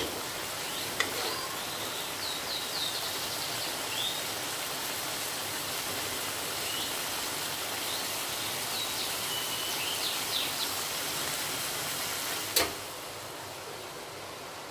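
Balado sardine and enoki mushroom sauce simmering in an aluminium wok, a steady sizzling hiss. A metal spoon knocks against the wok at the start and again about twelve and a half seconds in, after which the sizzle is quieter; short high chirps come through in the background a few times.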